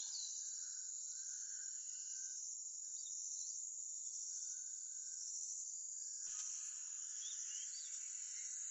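A steady, high-pitched chorus of insects, with a few short chirps over it. A single sharp knock comes about six seconds in.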